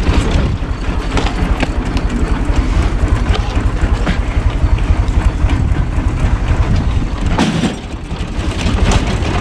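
Universal 445 tractor's four-cylinder diesel running steadily under load, turning a PTO-driven screw-cone log splitter, with a few sharp cracks as logs split. The engine sound dips briefly about three-quarters of the way through.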